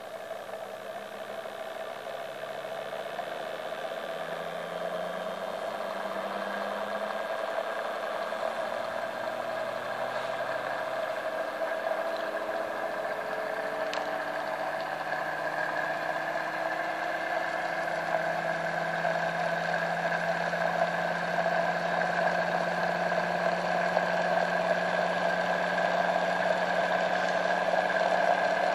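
Bedini-type pulse motor's rotor spinning up: a steady electric whine and hum whose lower tones rise in pitch, getting louder as it gains speed.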